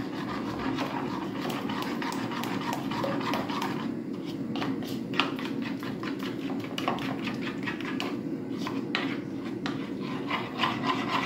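A metal spoon stirring a runny spice paste in a ceramic bowl: repeated wet scraping strokes with light clinks against the bowl, over a steady low hum.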